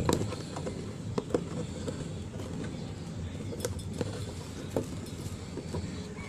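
Hands opening the packaging of an action camera, with several scattered sharp clicks and snaps of plastic over a steady low rumble.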